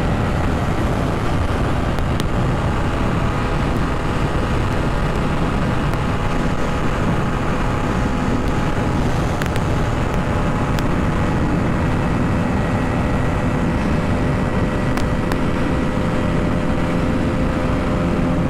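Aprilia RS 125's single-cylinder four-stroke engine running steadily at high revs near its top speed of about 120 km/h, mixed with constant wind and road noise from riding at that speed. The engine note holds an even pitch throughout.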